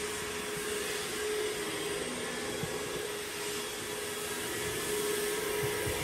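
Robot vacuum cleaner running, a steady hum with an even hiss.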